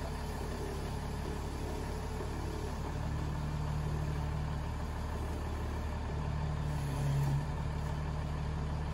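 Komatsu wheel loader's diesel engine idling steadily with a low hum, its note swelling briefly about seven seconds in.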